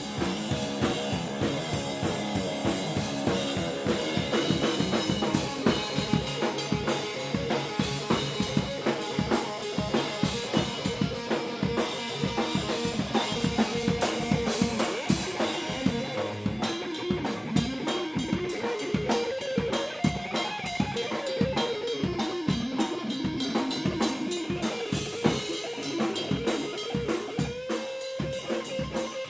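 Live drum kit played busily with frequent cymbal and snare hits, under electric guitar lines. Near the end the guitar holds one long note.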